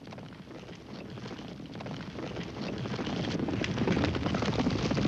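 Hoofbeats of a troop of galloping horses, a dense clatter that grows steadily louder as the riders approach.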